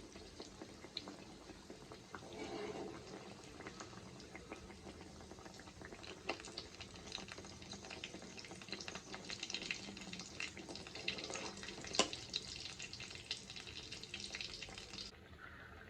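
Breadcrumb-coated kofta balls frying in oil on low heat: a soft, steady sizzle with scattered crackles that get busier partway through. There is one sharp click about twelve seconds in.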